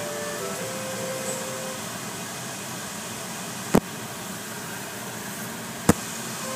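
Steady rushing noise inside a car's cabin, with two sharp clicks about two seconds apart in the second half; faint music fades out early on.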